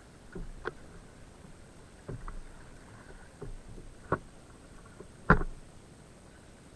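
A series of knocks and thumps on a kayak, about six in all, irregularly spaced, the loudest a little past five seconds in.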